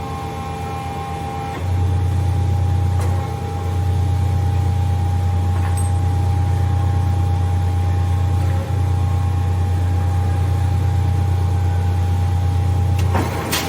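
Marvel 81A/10 vertical automatic bandsaw running under power, with a steady high whine throughout. A loud low hum comes on a couple of seconds in and holds until just before the end, where it stops with a sharp click.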